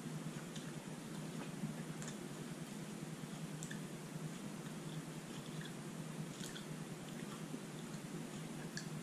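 A person chewing and sucking the cottony pulp of a santol fruit: faint, scattered wet mouth clicks over a steady low hum.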